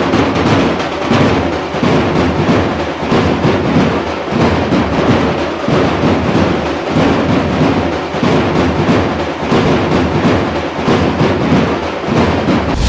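Loud drum-heavy music with a steady beat.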